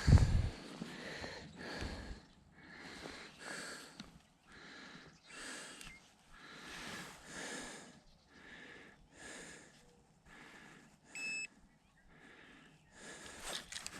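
A man breathing heavily and audibly close to the microphone, a steady series of in- and out-breaths about one a second. A short electronic beep sounds once, about eleven seconds in.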